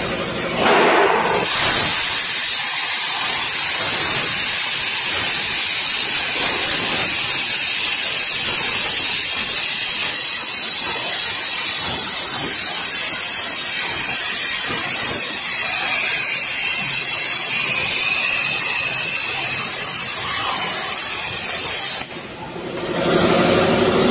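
CNC plasma cutter's torch arc cutting steel plate: a loud, steady hiss that starts about a second in and cuts off suddenly near the end as the arc goes out.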